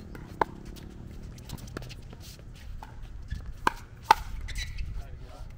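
Pickleball paddles hitting the hollow plastic ball in a rally: a series of sharp pops at irregular intervals, the loudest about four seconds in.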